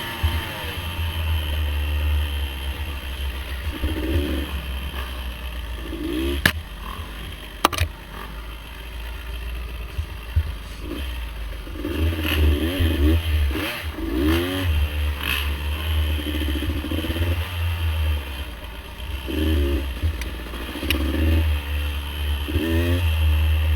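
Small off-road vehicle engine revving up and easing off again and again under a steady low rumble, with a few sharp knocks and clatter, two of them about six and a half and seven and a half seconds in.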